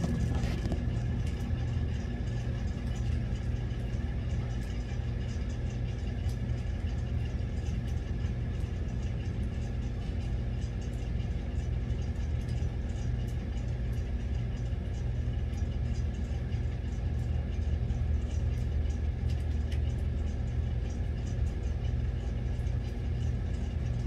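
A steady low mechanical hum, like a running motor or engine, unchanging throughout, with a faint steady high tone above it.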